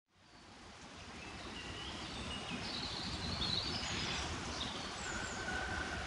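Windy countryside ambience: a steady low wind rumble with birds chirping in short high calls, fading in from silence over the first couple of seconds. A held high note starts near the end.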